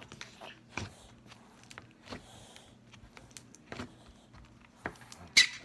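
Fabric rustling and light knocks and taps as a sweatshirt is pulled on close to the microphone, with one louder, sharper knock near the end.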